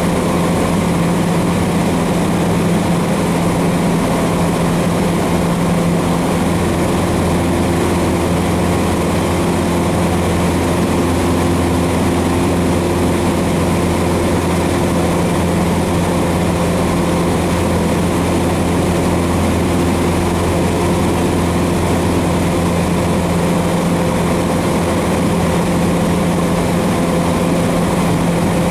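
Cessna 150's four-cylinder Continental O-200 engine and propeller running steadily in flight, heard from inside the cabin as a loud, even drone.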